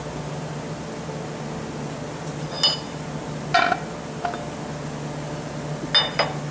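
A few sharp metallic clinks, four in all, as metal tools and parts are picked up and set down on a workbench, over a steady low hum like a shop fan.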